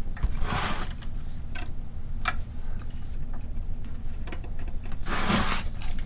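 A few small clicks and scrapes of a push-fit tube connector being screwed by hand into a 3D printer's plastic extruder, the threads getting snug and harder to turn. Two short hisses, about half a second in and near the end, over a steady low hum.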